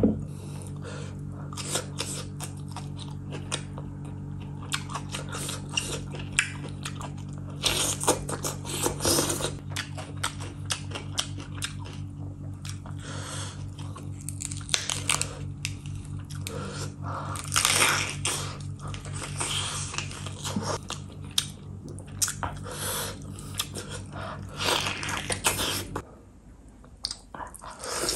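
Close-miked eating sounds: chewing and biting of mutton curry eaten by hand, irregular wet smacking and crunching. A steady low hum runs underneath and stops about two seconds before the end.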